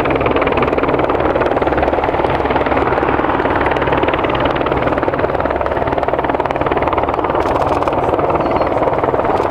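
de Havilland Canada DHC-7 Dash 7, four PT6A-50 turboprop engines running at takeoff power as the aircraft rolls, lifts off and climbs out: a loud, steady propeller and turbine noise.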